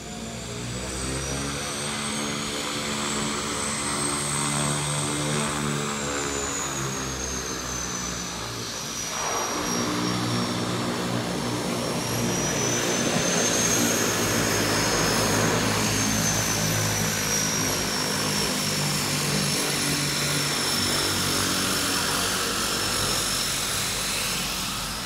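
A DHC-6-300 Twin Otter's two Pratt & Whitney PT6A turboprop engines run as it lands and taxis past, close by. The propellers drone under a high turbine whine that glides up and down, and the sound changes abruptly about nine seconds in.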